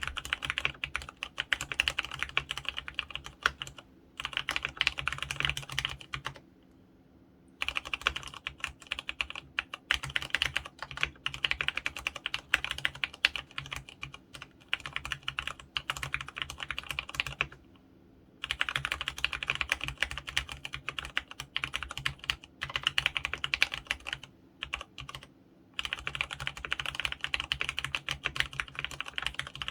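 Rapid typing on an mStone Groove F mechanical keyboard with fully lubricated Clarion brown 35g switches, dense key clicks in runs of several seconds broken by a few short pauses.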